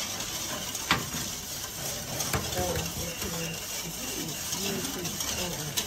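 Wire balloon whisk beating a thin liquid in a stainless steel bowl, with two sharp knocks about a second and two and a half seconds in. Faint voices underneath.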